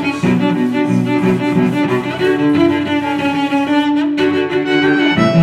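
Background music played on bowed strings, with held cello and violin notes changing every second or so.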